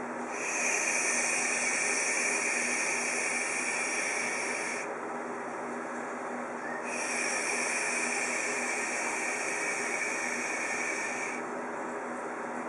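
A man shushing a baby: two long, steady 'shhhh' sounds of about four and a half seconds each, with a pause for breath between them, over a steady low background hum. This is the shushing of the '5 S's' calming technique, used to soothe a fussy swaddled newborn.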